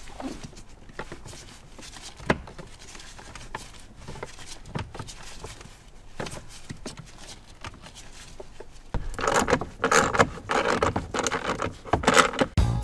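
Small metal screws, a screwdriver and plastic steering-column cowl parts being handled: light scattered clicks and taps, then louder rattling and scraping from about nine seconds in.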